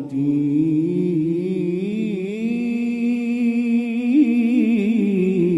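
Male Quran reciter (qari) singing one long, loud melismatic note in tilawah style, winding up and down in pitch with vibrato without pausing for breath. There is a short break right at the start.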